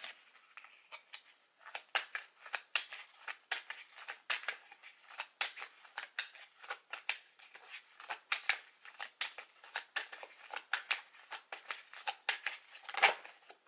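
Tarot deck being hand-shuffled: quick dry clicks and slaps of card against card, a few a second, the loudest near the end. The deck is being shuffled to draw a clarifier card.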